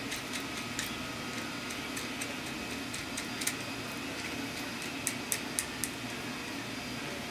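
Light, irregular metallic clicks and ticks as a jam nut is threaded by hand onto the axle of a Profile ZCoaster BMX hub, with a quick run of four sharper clicks about five seconds in.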